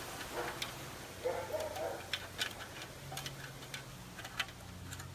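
Irregular light clicks and taps from a young Labrador puppy rummaging in a container and picking up a small object.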